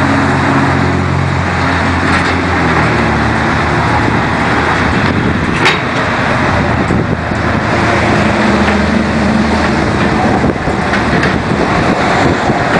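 Steady vehicle and traffic noise with a low engine hum, and a single sharp click a little over halfway through.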